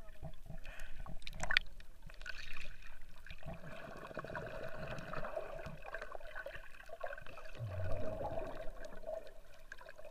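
Muffled underwater water sounds picked up by a submerged action camera: water sloshing and bubbling against the housing, with a few sharp clicks early on and a steady faint hum underneath.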